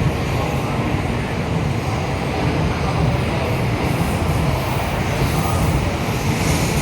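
N700-series Shinkansen train running alongside the platform as it departs: a loud, steady noise, heaviest in the low end.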